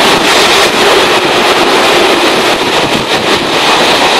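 Passenger train running, heard at an open window: a steady, loud rush of air and wheels on the rails, with a quick run of clicks about three seconds in.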